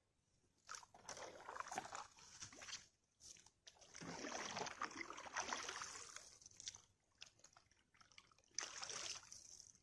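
Faint canoe paddle strokes in calm lake water, sloshing and dripping, in three stretches: about a second in, around four seconds in, and near the end.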